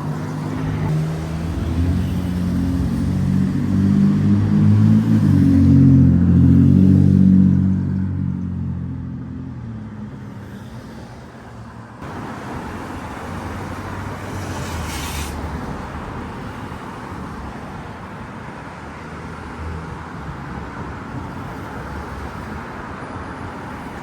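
Road traffic at an intersection. A vehicle engine runs loud and close for the first several seconds, its note rising, then fades away by about eight seconds. After an abrupt change, a steady hum of traffic remains.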